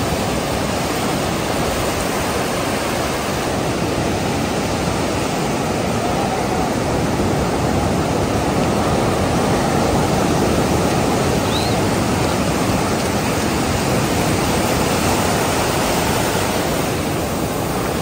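Pacific Ocean surf breaking and washing up the beach, a steady rush of noise with no break.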